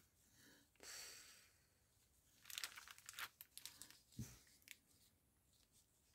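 Faint rustling and crinkling of satin ribbon being folded and pinched into a bow by hand, a soft swish about a second in, then a run of short rustles and light clicks in the middle.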